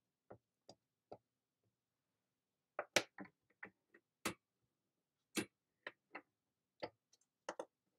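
About a dozen sharp plastic clicks and taps, irregularly spaced with a cluster about three seconds in, from clear acrylic stamps and the hinged clear lid of a stamping platform being handled, set in place and closed.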